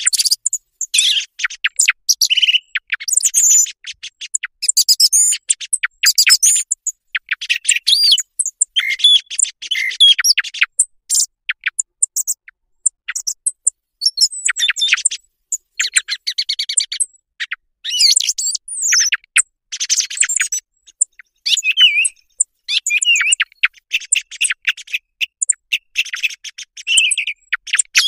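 Recorded song thrush song used as a hunting lure: a long run of short, varied, high-pitched phrases, each a quick string of notes, separated by brief pauses.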